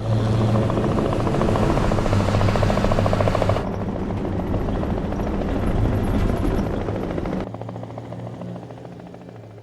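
Helicopter rotor chop and engine noise with a fast, even beat. It changes abruptly twice, about three and a half and seven and a half seconds in, then fades away near the end.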